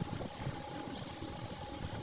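An engine idling steadily, with a faint constant whine over the rumble.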